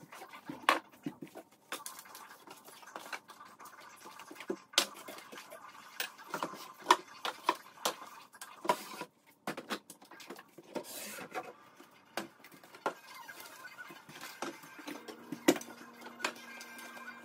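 Irregular clacks and knocks of jars, canisters and food packages being taken off pantry shelves and set down on a kitchen counter, with light rustling in between.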